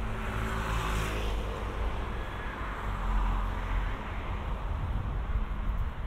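Town street traffic: a motor vehicle's engine rumbling close by, with a vehicle passing that swells about a second in and then fades.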